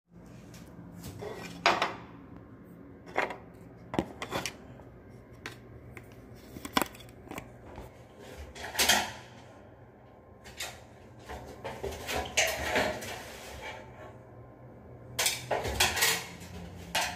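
Scattered clinks, clicks and clatter of hard objects being handled, a dozen or so sharp knocks spread through, with a faint steady hum underneath.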